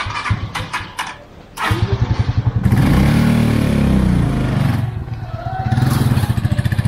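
A motorcycle engine running close by with a fast, uneven putter. It revs up and back down about a second and a half after it starts, eases off, then picks up again near the end.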